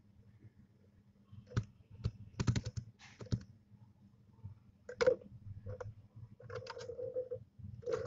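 Barn owlets in their nest: a scatter of sharp clicks and taps, with a quick run of them about two and a half seconds in. In the second half come a few short low notes, the longest lasting nearly a second.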